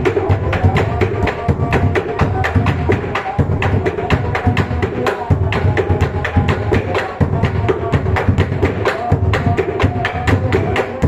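Bedug, the large barrel drum of a mosque, beaten in a fast, steady rhythm: deep booms under a dense run of sharp knocks, several strikes a second.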